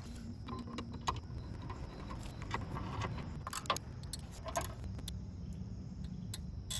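Light metallic clicks and taps as a Torx bolt is turned in by hand with a small driver into the chrome docking hardware on a Harley-Davidson, the tool clinking against the bolt and bracket at irregular intervals, over a low background rumble.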